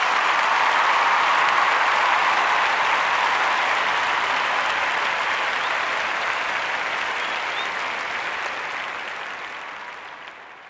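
Crowd applause with a few faint whistles, loudest in the first seconds and then fading away near the end.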